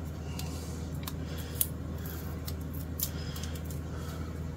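Coil of white plastic guitar binding being unrolled and handled, giving a few scattered light clicks and ticks over a steady low hum.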